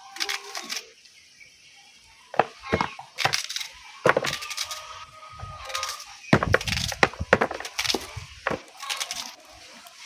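Onions and garlic being handled and broken up for blending: irregular sharp cracks and knocks, with short pauses between.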